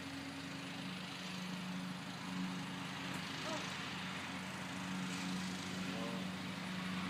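A steady low mechanical hum, like a motor running, over a noisy background.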